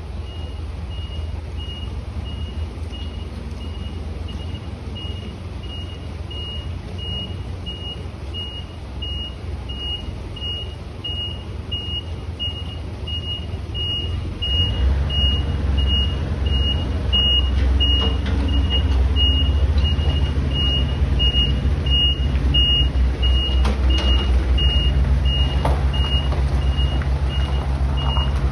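Backhoe's diesel engine running with its warning alarm beeping steadily, a little under two beeps a second. The engine gets louder about halfway through as the machine works.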